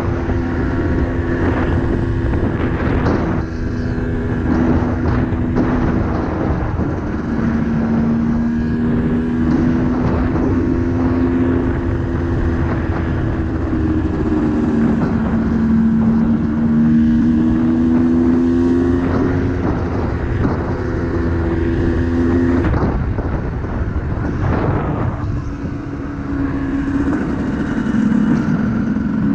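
Yamaha YZ250 two-stroke dirt bike engine running hard under load. Its pitch creeps up and drops back several times, about 7, 14 and 22 seconds in, as it shifts up through the gears. A broad rushing noise runs under the engine throughout.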